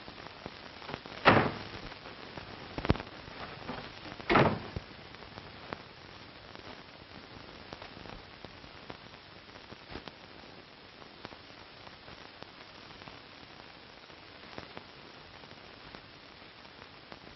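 Steady hiss of an old film soundtrack, broken by a few knocks and clicks in the first six seconds, loudest about one second in and about four seconds in, then only faint scattered ticks.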